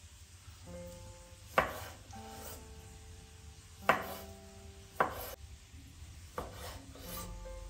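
Chef's knife cutting cherry tomatoes on a wooden cutting board: about five sharp knocks of the blade meeting the board, a second or more apart, over soft background music.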